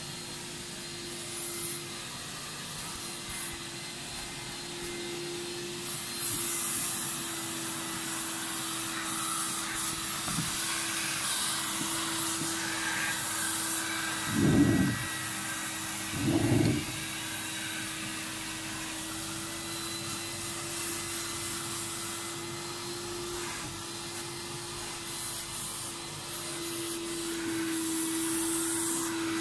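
Upholstery-washing vacuum machine running steadily with a constant hum and airy hiss. About halfway through come two dull thumps two seconds apart, a chair being moved on the wooden floor.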